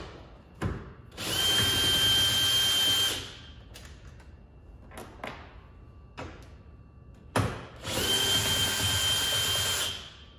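Cordless drill/driver spinning out the two bolts that hold the frunk latch piece, in two runs of about two seconds each with a steady high whine. Short clicks and knocks of handling come between the runs.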